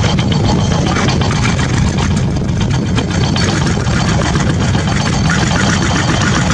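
An engine running steadily, a constant low rumble.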